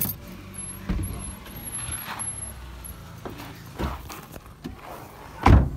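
Knocks and shuffling of someone climbing out of a car over a low hum, then one loud thump near the end: the car door being shut.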